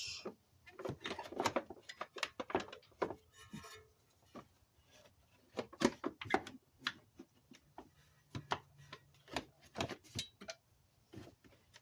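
Irregular light clicks and knocks of a plastic underbody panel being handled and pushed into place.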